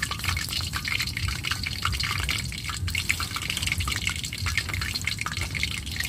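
Cireng (tapioca fritters) frying in oil in a wok: a steady sizzle made of many small crackling pops.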